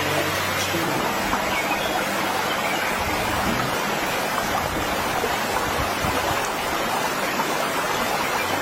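A steady rushing noise spread evenly from low to high pitch, holding at one level throughout.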